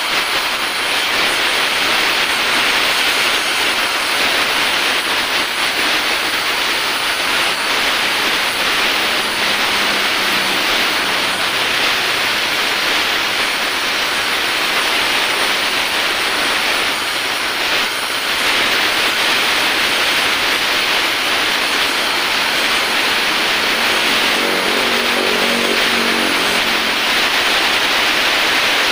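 Oxy-acetylene welding torch, its acetylene from a carbide generator, burning with a steady loud hiss as the flame heats an aluminium crankcase for a weld repair.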